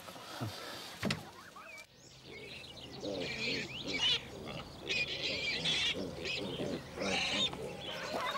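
A couple of soft knocks, then from about two seconds in a busy farmyard mix of rapid high chirping from birds and lower squealing calls from piglets.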